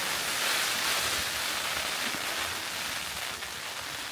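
Heavy rain beating on a tent's flysheet in a gale, heard from inside the tent: a steady hiss that eases a little toward the end.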